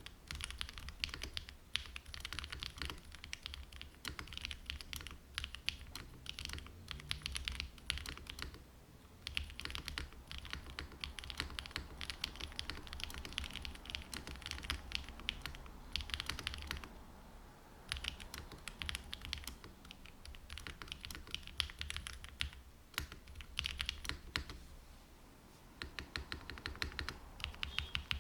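Typing on a Parallel Warp 80% (TKL) mechanical keyboard: stock Opal switches in an aluminum plate, gasket o-ring mount, GMK keycaps, no foam or dampeners. Rapid keystrokes in runs, with brief pauses about nine, seventeen and twenty-five seconds in.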